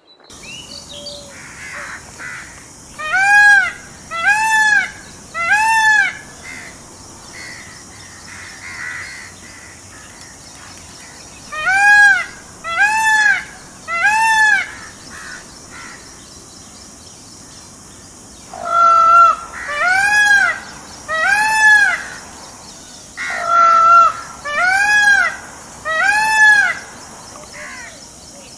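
Indian peafowl (peacock) giving its loud, wailing calls, each note rising and falling in pitch, in four bursts of about three calls; the last two bursts open with a flatter note.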